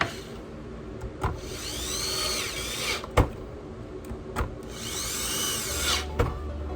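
Small electric screwdriver whirring in two bursts of about a second and a half, its whine rising and then falling in pitch, with sharp clicks before and after each burst as it works the screws.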